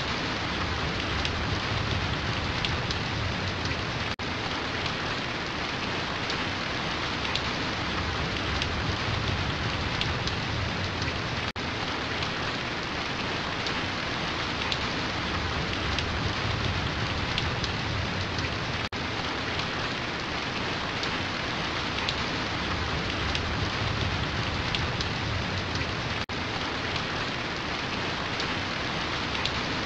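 Steady rainfall: an even hiss of rain falling on a surface, with a brief dip about every seven seconds.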